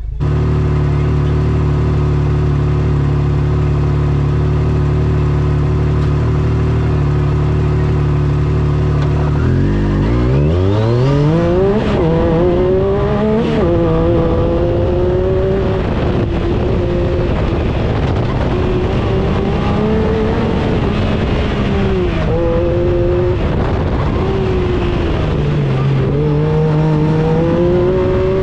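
Yamaha side-by-side buggy's engine, heard from inside the cabin, idling steadily, then revving up hard about ten seconds in as it pulls away. It climbs and drops in pitch through the gear changes and lifts of an autocross run.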